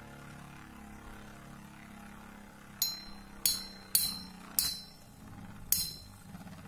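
Two Metal Fight Beyblades whirring steadily in a plastic stadium, then from about three seconds in, six sharp metallic clinks as their metal wheels strike each other, spaced about half a second to a second apart.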